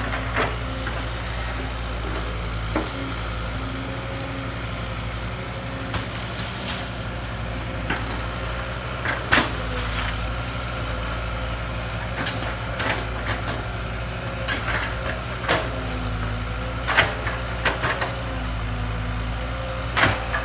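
Kobelco excavator's diesel engine running steadily, with scattered sharp clanks and knocks through it and a faint tone that rises and fades now and then.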